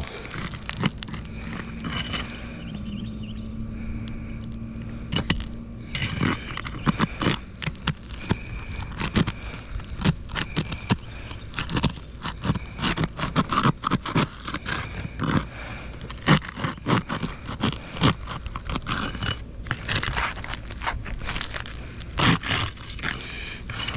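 A tool scraping and prying at a roof shingle in many short, irregular strokes, which begin about six seconds in after a quieter stretch. The shingle is stuck down and will not lift, so the repairability test fails.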